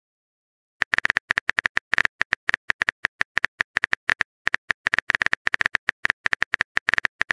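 Keyboard click sound effect of a texting-story app, a message being typed: a rapid, uneven run of short clicks, one per keystroke, starting about a second in.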